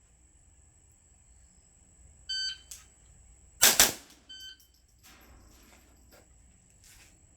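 Shot timer beeps to start, two gunshots follow in quick succession a little over a second later, then the timer beeps again two seconds after the start beep to mark the 2-second par time. A steady high insect drone runs underneath.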